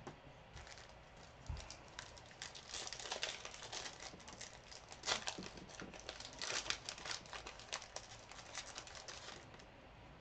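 Plastic-foil trading-card pack wrappers crinkling and tearing, a dense run of quick crackles through most of the stretch.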